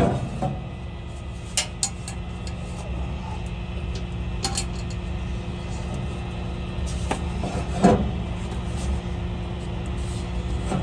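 A steady low engine hum, with a few scattered sharp clicks and knocks of metal as a box truck's drive shaft is tied up underneath it.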